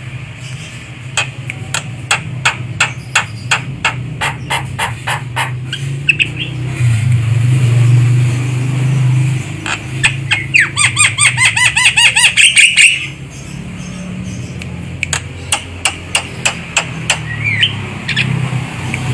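Javan myna calling: a run of sharp clicks at about two to three a second, then a fast rattling chatter of harsh pitched notes about ten seconds in, then clicks again, over a steady low hum. This is the call played as a lure for mynas.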